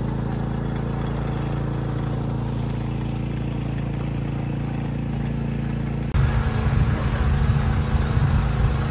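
Small engine of a mountain tea monorail cart running steadily. About six seconds in, the sound switches abruptly to a louder, rougher low rumble.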